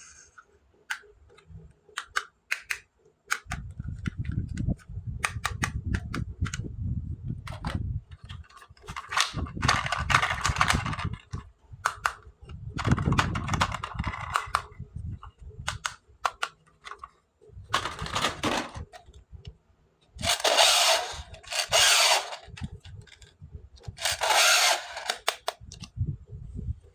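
Close-up handling of plastic toy pieces and packaging: scattered sharp clicks and taps, stretches of low bumping, and several bursts of rustling or scraping, each lasting a second or two.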